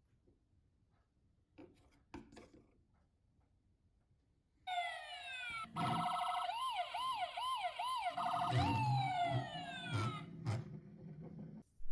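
Electronic police siren: a few falling sweeps, then a quick up-and-down wail, then falling sweeps again. It starts about five seconds in, after a few faint clicks.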